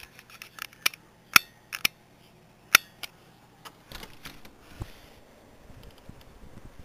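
A series of separate sharp clicks and knocks, about half a dozen, the loudest about a second and a half and nearly three seconds in.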